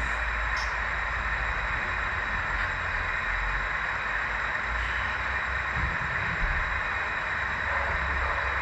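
Model freight train running along the layout track: a steady low rumble with a hiss and a faint high whine over it.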